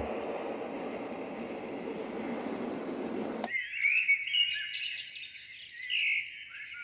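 A white noise machine's small speaker plays a steady rushing noise. About three and a half seconds in, a click switches it to a recorded birdsong track of chirping birds.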